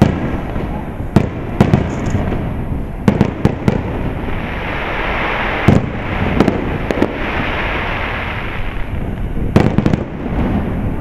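Aerial firework shells bursting overhead: about a dozen sharp booms in irregular clusters, with a continuous noise between them.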